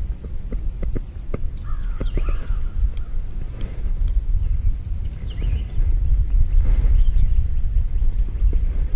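Wind rumbling on an outdoor action-camera microphone, with small clicks and rustles of hands handling a bluegill and fishing line, and a steady high-pitched whine in the background. The rumble grows louder about two-thirds of the way in.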